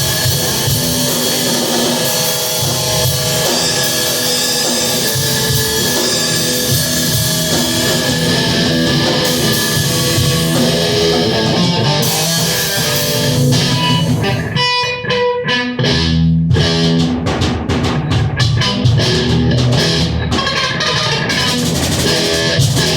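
Guitar and drum kit playing rock together at rehearsal. About two thirds through, the cymbals stop and the guitar carries on briefly alone before the drums come back in with sharp, even hits.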